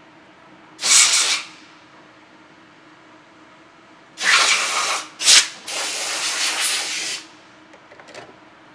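Compressed air blasting in four bursts inside a CNC mill's enclosure: a short one about a second in, then three close together about four seconds in, the last lasting about a second and a half. A few faint ticks follow near the end.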